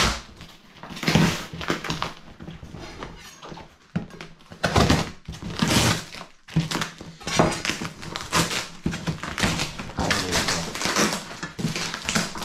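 Packing tape and cardboard being cut and ripped open by hand: a string of irregular tearing and scraping noises, some of them sharp and loud.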